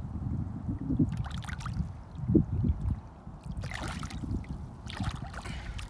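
Water sloshing and splashing in short bursts as a bass is held in the shallows to be released, over a low rumble of wind on the microphone.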